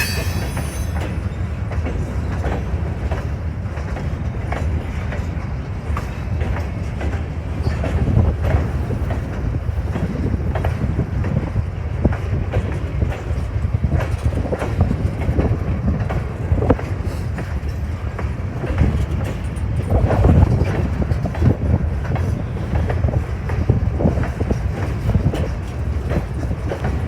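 Freight cars of a grain train rolling past, their steel wheels clicking steadily over the rail joints.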